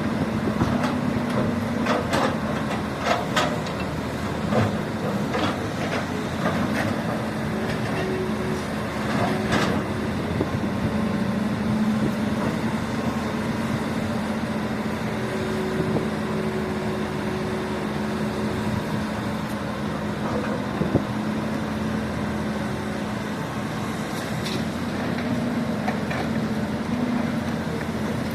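Radio-controlled excavator model's motor humming steadily, with scattered sharp clicks and knocks, most of them in the first ten seconds and again near the end.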